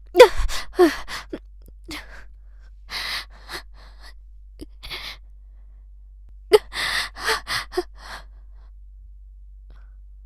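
A woman laughing in quick falling "ha" bursts, breaking into breathy, gasping laughter around three seconds in, then a second breathy fit of laughter about six and a half seconds in.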